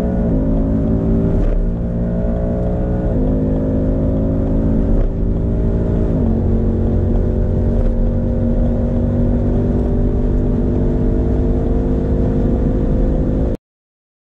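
V8 muscle car engine at full throttle at high speed, its pitch climbing slowly and dropping sharply at several upshifts. The sound cuts off abruptly about a second before the end.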